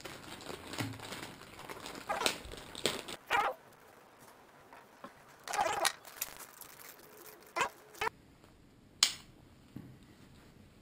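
Clear plastic packaging bags crinkling and small plastic GoPro mounts being handled, with scattered clicks and knocks of plastic parts on a wooden table. A single sharp plastic click sounds about nine seconds in.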